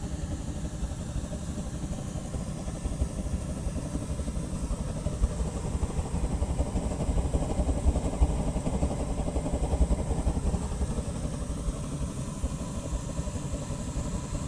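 Burner of an oil-and-gas-fired aluminium melting furnace running, a steady low rumble that swells a little in the middle.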